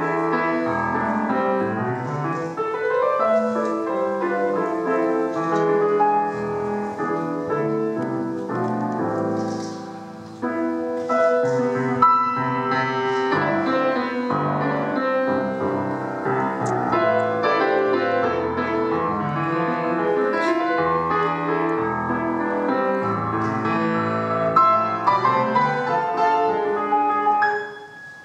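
Solo grand piano playing an Argentine folk dance piece in dense chords and runs. The playing softens briefly about ten seconds in, comes back in suddenly, and pauses for a moment just before the end.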